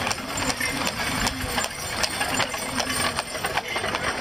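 Hooves of several horses walking, a dense, irregular clip-clop of knocks several times a second.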